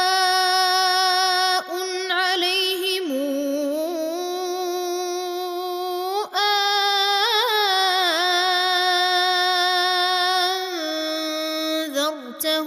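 Male reciter chanting the Quran in a slow melodic style, holding long drawn-out notes that waver in ornamented turns and step down in pitch, with short breaks for breath.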